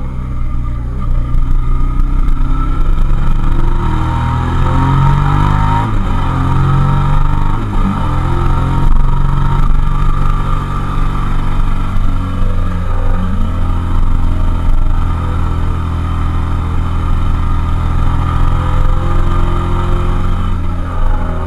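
Suzuki SV650S's 645 cc 90-degree V-twin engine running under way, heard from the bike itself. Its pitch rises and briefly drops several times in the first eight seconds or so, then it holds a fairly steady pull.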